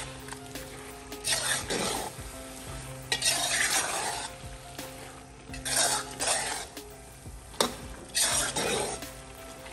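A thick pot of chopped greens being stirred and turned with a flat spatula in a large metal pot, sizzling in oil. Scraping strokes come in waves every couple of seconds, with a sharp knock of the spatula on the pot about three-quarters of the way through.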